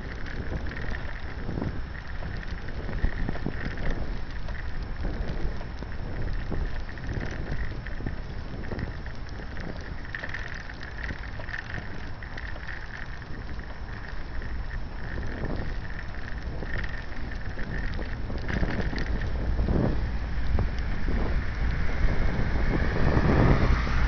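Wind buffeting the microphone in a steady low rumble while travelling along a wet paved path, over a constant hiss from the wet surface, with a few scattered knocks.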